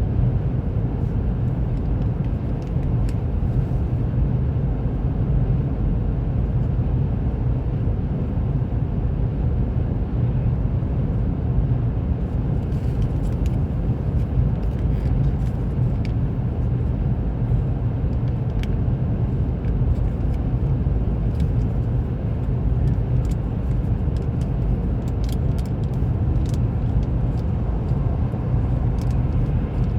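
Steady low road rumble and engine noise heard inside the cabin of a car driving at speed, with a few faint light ticks scattered through it.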